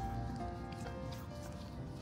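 Background music: a melody of held notes that change every half second or so, over a low rumble.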